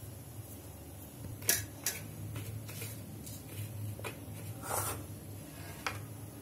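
A few light clinks and taps of steel plates and dishes being handled, with a short gritty scrape as a potato patty is pressed into dry breadcrumbs on a steel plate, over a steady low hum.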